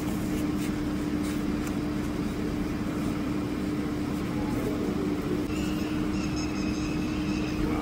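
A steady machine hum, one constant low tone over a noisy background, unchanged throughout.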